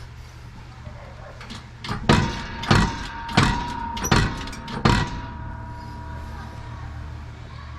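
Five hammer blows on a metal part, about two-thirds of a second apart, each strike leaving a short metallic ring: a part being tapped into place on the wheel hub during a wheel bearing replacement.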